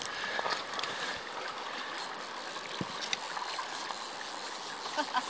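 River water running steadily over a shallow gravel bed, with a few faint clicks near the end.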